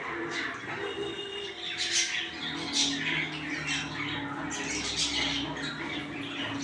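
Pet Java sparrows squawking and chirping while they bathe, with a few sharp, louder sounds about two, three and five seconds in.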